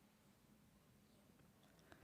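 Near silence: faint room tone, with a soft click near the end.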